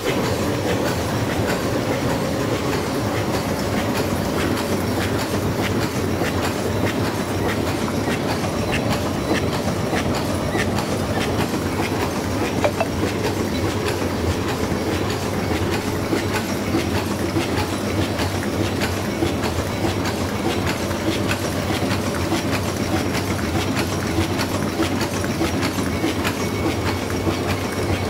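Several Jain high-speed paper cup forming machines running together: a steady, dense mechanical clatter of many fast clicks and knocks from their rotary turrets.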